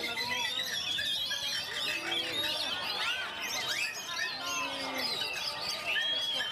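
Several caged oriental magpie-robins singing at once: a dense, unbroken tangle of overlapping whistles, chirps and quick rising and falling notes.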